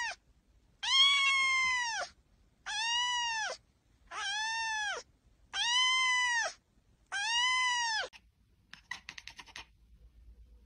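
Kitten meowing repeatedly: five drawn-out, high meows about a second long with short gaps between them, each rising and then falling in pitch.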